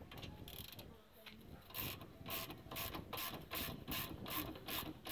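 Ratcheting wrench clicking in quick back-and-forth strokes, about three a second, from a couple of seconds in, as a 15mm bolt is turned; a few faint tool clicks come before it.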